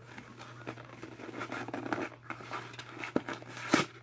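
Cardboard toy box and its tape being forced open by hand: irregular scratchy rustling and scraping, with a few sharp clicks, the loudest near the end.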